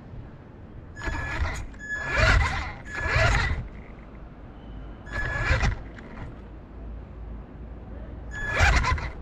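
Remote-control car's small electric motor whining and its tyres rolling on paving stones in five short spurts, each under a second, as it is driven forward in starts and stops.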